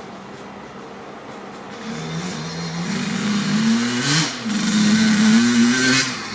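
Kawasaki KX80's 80cc single-cylinder two-stroke engine, fitted with a Dep S2 silencer, running at idle and then revved twice: the pitch climbs to a peak about four seconds in, dips briefly, is held high again, and drops back to idle near the end.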